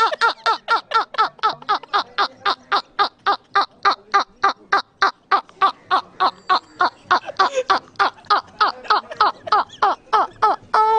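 A dog yelping over and over in short, even cries, about four a second, each falling in pitch, with a longer cry near the end. It is the sound of a dog protesting while its foreleg is held and treated.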